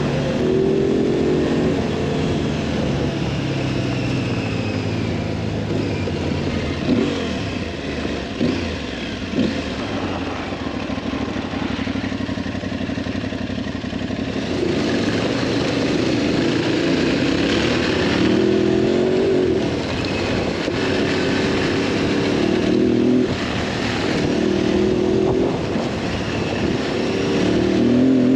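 Twin-cylinder adventure motorcycle engine under way on a trail, its revs climbing and dropping again and again as it is ridden through the gears. Two short knocks come about seven and nine seconds in.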